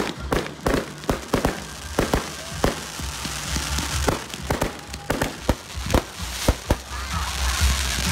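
Professional fireworks fired at close range: an irregular string of sharp bangs and launch thumps, several a second, from ground-fired cakes and candles, with a hiss of burning effects between the reports.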